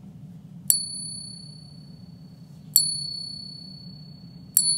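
Silver 8 reales coin tapped against another silver coin three times, each tap ringing with a long, clear, high tone that slowly fades. This is the ring test, in which a sustained bright ring is the sign of genuine silver.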